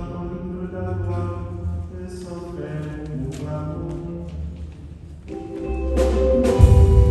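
Church music at Mass: held notes for the first few seconds, then about six seconds in a louder, fuller band sound comes in with drum hits.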